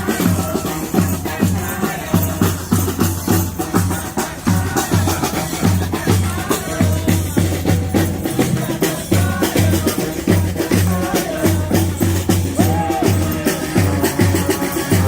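Honk-style street band playing a loud, up-tempo tune: drums beating throughout over a low bass line that repeats about twice a second, with melody instruments on top.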